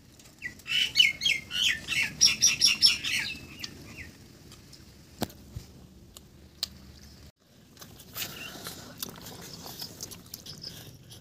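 A songbird singing a quick run of high, repeated chirps for about two and a half seconds, starting about a second in.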